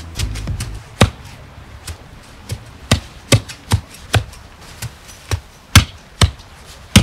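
A series of sharp, short knocks, at first spread out, then about two a second, some of them loud, with little between them.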